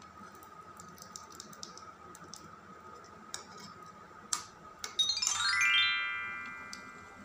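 Faint background music with light metal clinks of a fork and spoon tapping against a small drink can. About five seconds in, a rising, chime-like synthesized sweep swells and then slowly fades.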